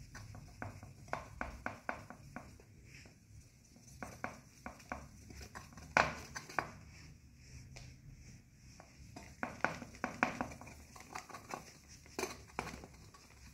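Cotton wad rubbing and buffing polish off a steel vehicle part, with irregular light clicks and knocks as the metal part is handled; the loudest knock comes about six seconds in.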